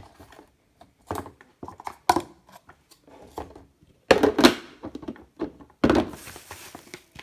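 Irregular knocks and thunks of food containers being handled and set down on refrigerator shelves, with a louder thunk about four seconds in.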